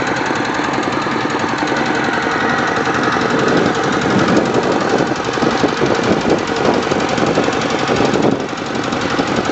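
The single-cylinder diesel engine of a two-wheel walking tractor running under way, with a fast steady pulse. It is briefly a little quieter about eight seconds in.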